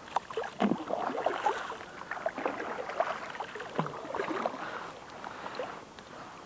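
Water splashing and sloshing around a plastic kayak, with small irregular knocks and clicks, dying down about five and a half seconds in.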